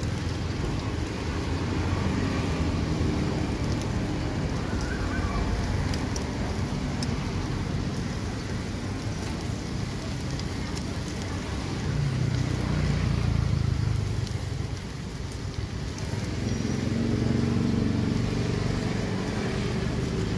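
Street-stall ambience: a low traffic rumble that swells twice, over a faint sizzle of takoyaki batter cooking in the pan, with a few light clicks.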